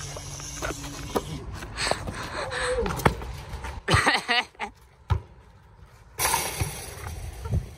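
A basketball knocking against the hoop and bouncing on an asphalt court, a handful of sharp knocks, the loudest about three seconds in.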